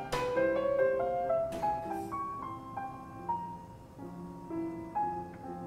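Background piano music playing a slow melody of single notes. A short noise comes at the start and another about two seconds in.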